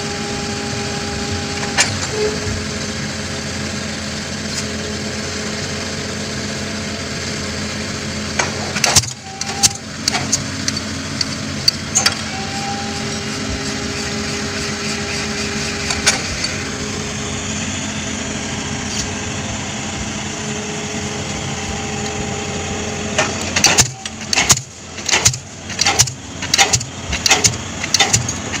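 Komatsu PC200 excavator's diesel engine running steadily with a steady whine, with a few scattered sharp clanks about a third of the way in. Near the end a diesel pile hammer starts, driving a concrete spun pile with regular blows about every 0.6 seconds.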